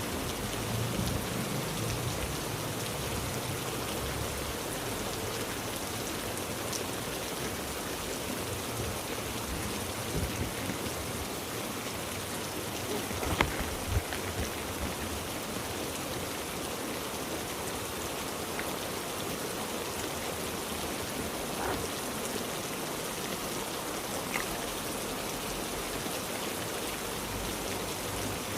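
Heavy rain falling steadily, a dense even hiss. About halfway through come two sharp knocks, about half a second apart.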